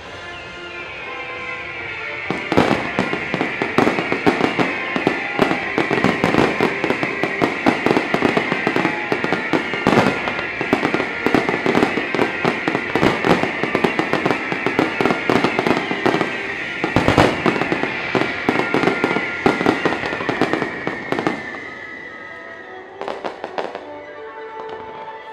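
A dense barrage of fireworks, bursts and crackle packed close together, over show music, with a high tone that falls in pitch again and again. The barrage starts a couple of seconds in and dies away near the end, leaving a few scattered bangs.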